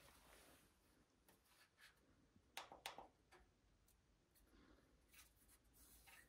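Near silence with faint handling noise: light rubbing and rustling, with two small clicks close together about two and a half seconds in.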